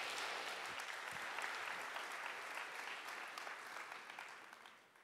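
Audience applauding, the clapping fading away over the last second or so.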